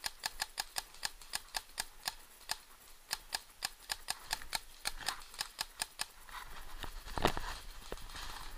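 Paintball marker firing a steady string of shots, about five a second. Near the end the shots give way to rustling of ferns and brush as the player moves, with one louder snap.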